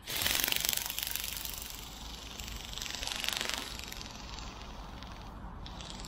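Cheap RC ornithopter bird's small motor and flapping plastic wings making a fast rattling buzz, loudest at the start and fading as it climbs away, with a brief swell about three seconds in.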